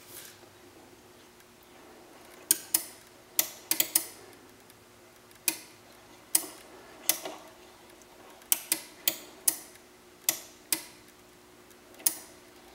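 Sharp mechanical clicks at irregular intervals, some in quick clusters, from the ferrofluid sculpture's magnet mechanism, over a faint steady hum.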